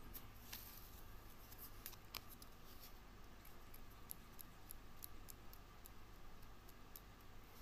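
Near silence with faint, scattered small clicks from small paper pieces being handled by the fingers.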